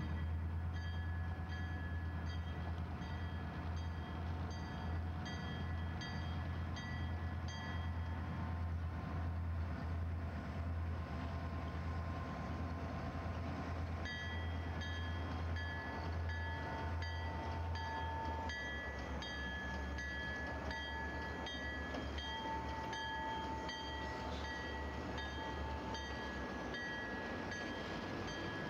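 Two EMD GP39-2 diesel locomotives, each with a turbocharged twelve-cylinder engine, running under power as they pull a train slowly past, their low drone easing after about eighteen seconds. Over it a bell rings steadily, about two strokes a second, pausing for a few seconds early on.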